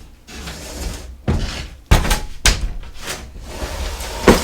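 Several dull wooden knocks and thumps, a few spaced about half a second apart, as 2x4 lumber is handled and set in place.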